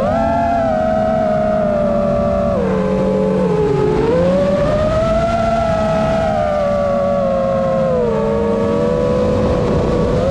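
FPV quadcopter's brushless motors whining, the pitch following the throttle: it sags about three seconds in, climbs back a second later, and dips again near the end.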